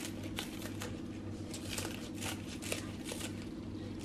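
Scissors snipping a bunch of green onions into a bowl, a short crisp snip about three times a second, over a steady low hum.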